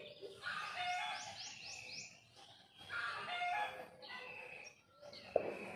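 Roosters crowing, several long calls a couple of seconds apart, with small birds chirping around them. A sharp click comes near the end.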